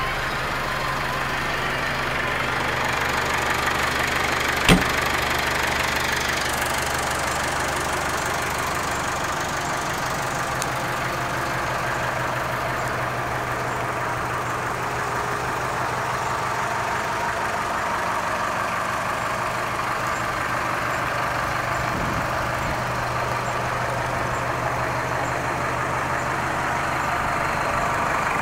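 McCormick CX95 tractor's diesel engine idling steadily, with a single sharp knock about five seconds in.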